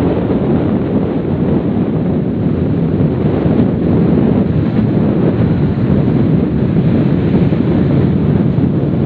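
Steady wind rush buffeting the microphone of a motorcycle riding at road speed, a loud low roar with no clear engine note above it.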